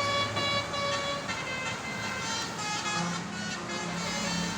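Indonesian "telolet basuri" multi-tone bus air horn playing a tune, note after note a few tenths of a second each. A steady low hum joins about three seconds in.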